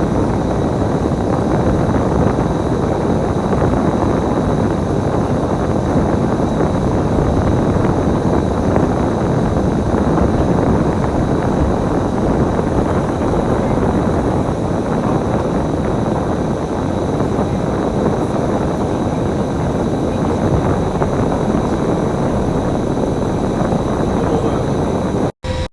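Bus running, a steady engine and road noise that cuts out for an instant near the end.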